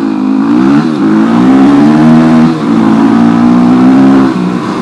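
Supermoto motorcycle's single-cylinder engine running under changing throttle on a rough dirt trail, its pitch rising and falling, easing off briefly about a second in, again midway and near the end.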